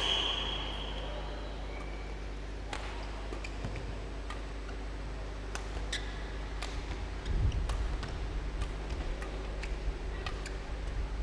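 Badminton rally: racket strings hitting the shuttlecock in sharp, scattered ticks, with a few short squeaks, over a faint steady hall hum.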